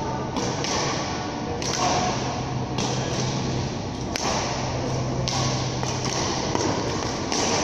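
Badminton rally in a large sports hall: sharp racket strikes on a shuttlecock, about seven of them a second or so apart, with thuds of footwork on the court floor. A steady low hum runs underneath.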